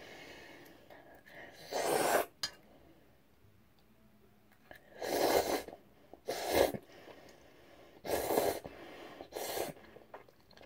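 A person eating steaming-hot jjajang ramen noodles: about five short, airy bursts of blowing and slurping, spaced a second or more apart.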